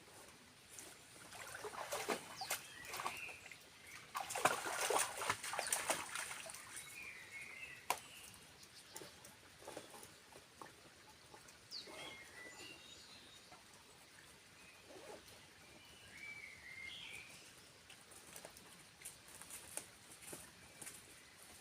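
Small birds chirping now and then in woodland, with a run of rustling and crackling, like movement through leaves or brush, during the first six seconds or so.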